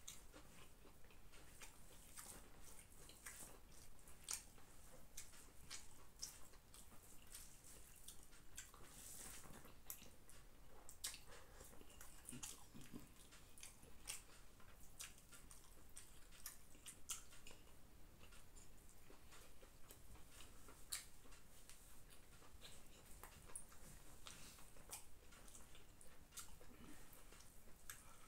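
Faint, irregular wet clicks and smacks of eating biryani by hand: fingers mixing rice on a banana leaf, and chewing.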